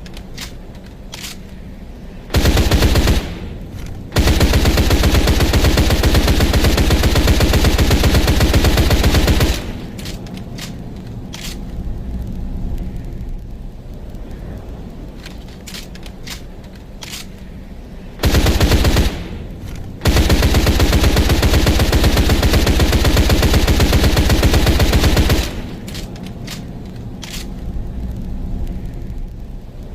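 Thompson submachine gun with a drum magazine firing full-auto in two rounds: each time a short burst of about a second, then a long sustained burst of about five seconds. Quieter stretches between the bursts hold scattered clicks and rattles.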